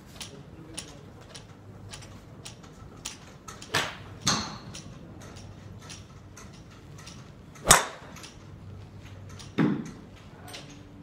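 Golf clubs striking balls at a driving range: a handful of loud, sharp cracks, the loudest about two-thirds of the way in, over many fainter clicks of shots from nearby bays.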